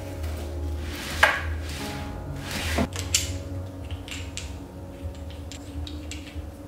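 Small handling sounds of packing supplies: rustling and a few knocks, then a run of light clicks and taps as a wooden rubber stamp is handled over a glass desktop, under quiet background music.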